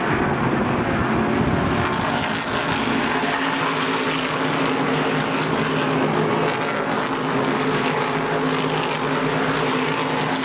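NASCAR Whelen Modified Tour race cars' V8 engines running at racing speed, a loud, steady drone of several engines together.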